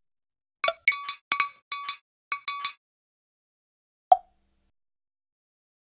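Title-card sound effect: a quick run of about ten short, glassy clinking notes in little groups, then a single clink about four seconds in.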